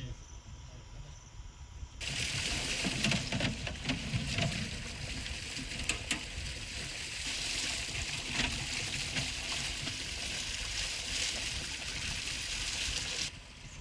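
Water gushing from a pipe and splashing over fresh green bamboo tubes as they are rinsed by hand. The steady rush starts about two seconds in and cuts off shortly before the end.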